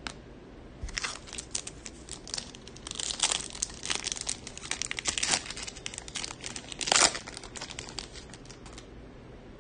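Foil wrapper of a Topps Chrome baseball card pack crinkling as it is torn open and the cards are worked out: a run of quick crackles, the loudest about seven seconds in.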